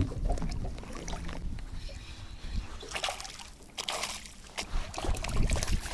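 A hooked zander splashing and thrashing at the water surface on the line, with a steady low rumble underneath.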